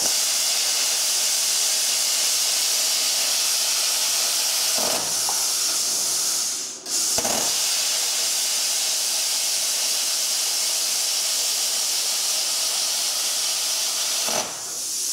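Luch Profi CUT-50 plasma cutter cutting metal: a loud, steady hiss from the arc and air jet that starts abruptly. It cuts out for a moment about seven seconds in, starts again sharply, and thins out near the end.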